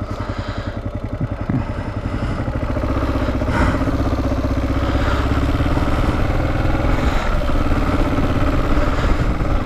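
Kawasaki KLR 650's single-cylinder engine idling with a pulsing beat, then pulling away from a stop and accelerating, getting louder from about two seconds in.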